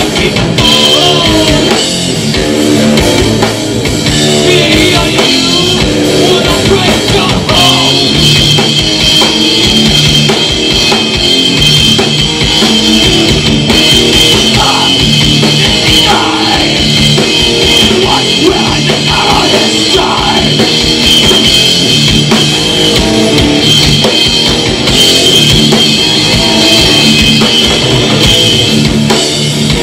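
Rock band playing live and loud, with drum kit and guitar.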